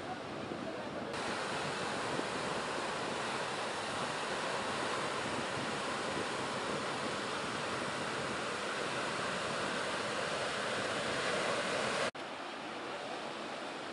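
Ocean surf breaking and washing: a steady rush of whitewater. The sound changes abruptly about a second in and again near the end, where the recording is cut.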